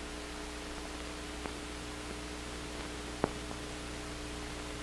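Steady hiss and electrical hum of an old film soundtrack, with two short clicks, the second louder, about a second and a half and three seconds in.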